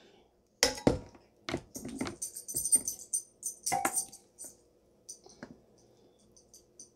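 Metal serving tongs clicking and clattering while lifting Caesar salad onto a plate, with rustling of lettuce. The sharpest clicks come about a second in and again near four seconds. After that the clatter thins to a few light ticks.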